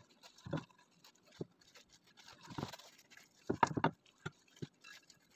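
Crinkling and rustling of disposable plastic gloves as hands shape bread dough around cone moulds, in irregular handling noises with a few soft knocks, the loudest about three and a half seconds in.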